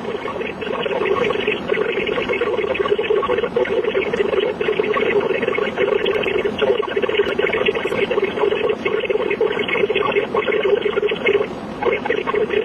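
Radio receiver static: a steady, loud hiss with a buzzy hum in the lower middle, carrying no speech, that dips for a moment near the end.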